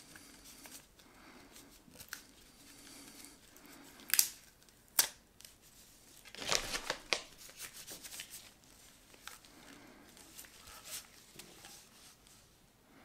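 A PCIe sound card being turned over and handled in disposable gloves: glove rubbing and light handling noise, with two sharp clicks about four and five seconds in and a short run of rustling and clicks a little later.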